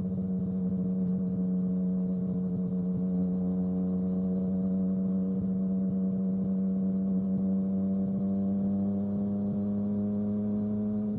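Yamaha XSR900's inline-three engine running at a steady cruise: a strong, even hum whose pitch rises slightly as it goes.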